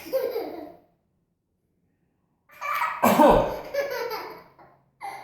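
A man sneezes sharply about three seconds in, with a toddler's laughter around the sneezes.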